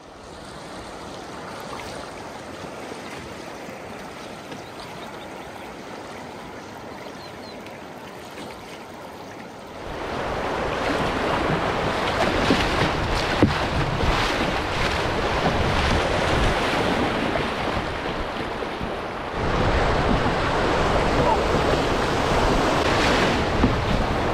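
Rushing, choppy river water around an open canoe, with wind buffeting the microphone. The noise steps up sharply about ten seconds in and again a little before the end, as the canoe runs through rougher, faster water.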